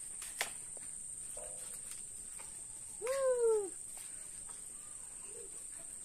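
A cat meows once, a single falling call lasting under a second, about halfway through. A steady high-pitched whine runs underneath.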